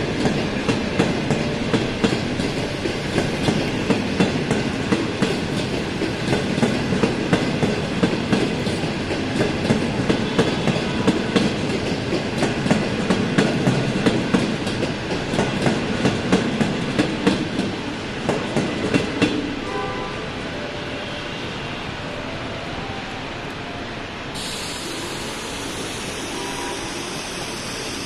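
Passenger train of 25T/25Z-series coaches pulling out of a station, its wheels clicking rhythmically over rail joints and pointwork. The clicking stops about two-thirds of the way through, leaving a quieter, steady rumble of the coaches rolling by.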